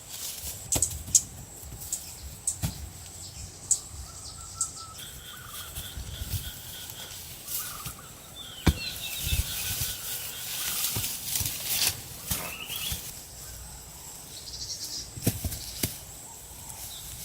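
Scattered sharp knocks and taps, with a few short bird-like calls in between.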